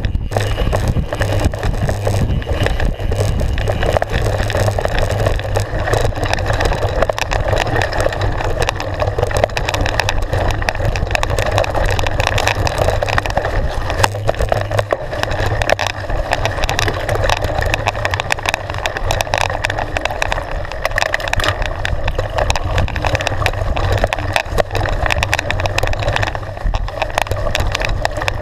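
Mountain bike descending a rough, stony forest trail: a continuous rumble of tyres over loose stones and roots, with steady rattling and knocking from the bike.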